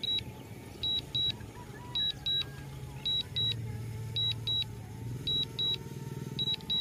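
DJI Mavic Mini's return-to-home landing alert: paired high beeps repeating about once a second while the drone descends automatically to land, over a low hum.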